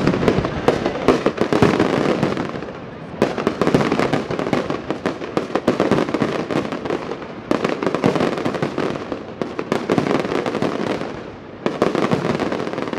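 Aerial fireworks display: a continuous, dense run of shell bursts and crackling reports. Fresh loud volleys break in about three seconds in, around the middle and again near the end.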